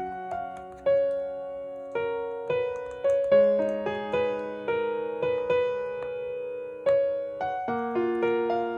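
Background music: a slow solo piano piece, single notes and chords struck about once a second and left to ring out.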